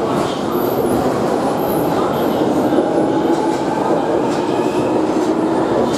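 London Underground 1996 Stock Jubilee line train pulling out of the platform: a loud, steady rumble of wheels on rail, with the traction motors whining faintly and rising slowly in pitch.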